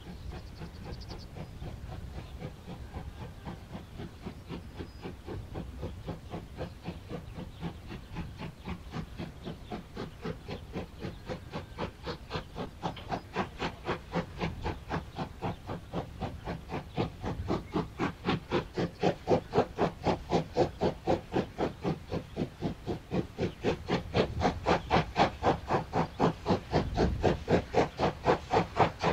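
German 2-10-0 steam freight locomotive working hard with a heavy freight train, its exhaust chuffing in an even beat of about three to four a second. The beats grow steadily louder as it approaches.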